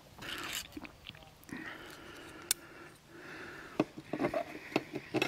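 Swig and swallow from a drink can with breaths out, then several sharp clicks and knocks as the can is set down on a plastic folding table and a small bottle is handled.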